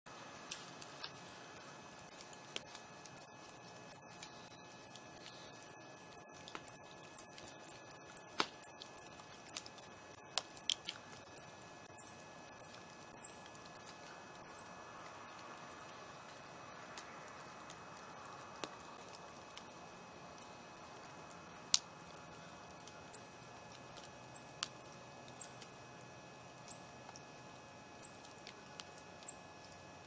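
Glowing wood embers of a log fire crackling: a quick, uneven run of sharp, very high-pitched ticks with the odd louder pop, thinning out and getting softer from about the middle on.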